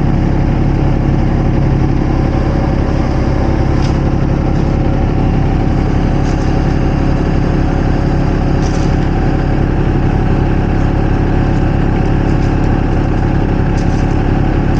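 Diesel engine of compact construction equipment running at a steady speed, with a fast, even low throb and no change in pitch; a few faint clicks and rattles come through over it.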